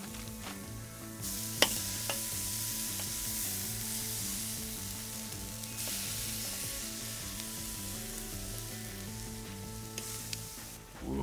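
Marinated chicken breasts sizzling as they are laid on a hot charcoal grill grate, the sizzle swelling about a second in, with a few sharp clicks of metal tongs on the grate. A background tune plays underneath.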